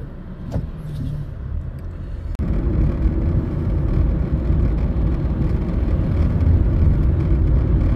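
Road noise inside a moving car's cabin: a steady low rumble of engine and tyres, which jumps louder a little over two seconds in.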